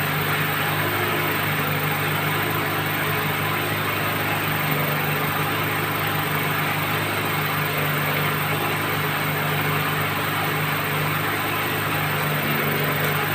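Well-drilling machine running steadily: a constant low engine hum under a broad rushing noise, with no change in pace.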